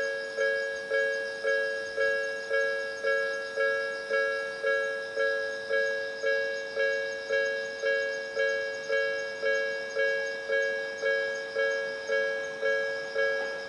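Japanese level-crossing warning bell ringing. It is an electronic two-tone ding struck about twice a second, each strike fading before the next, sounding while the crossing is closed for an approaching train.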